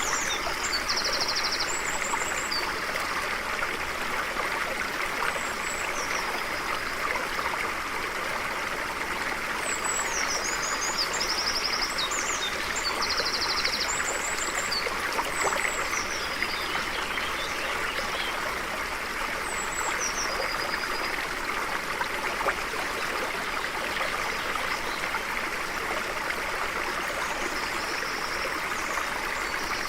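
A stream flowing steadily, with small birds singing high above it in short chirps and trills that come and go in several bursts.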